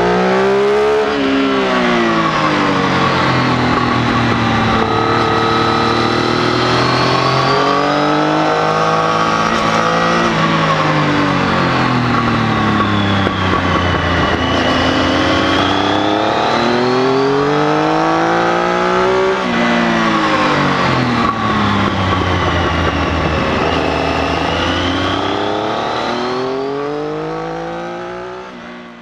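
Triumph Tiger 800's three-cylinder engine, recorded on the bike at track speed. The revs rise and fall over and over as the rider accelerates out of corners and rolls off or brakes into them. The sound fades out over the last few seconds.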